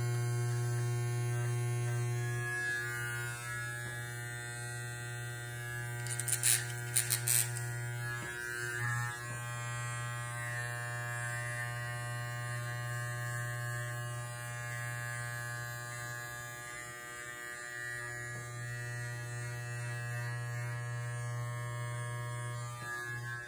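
Corded T-blade hair trimmer buzzing steadily while it is run along the jaw and neck line, its level dipping briefly a few times. A few sharp clicks come about six to seven seconds in.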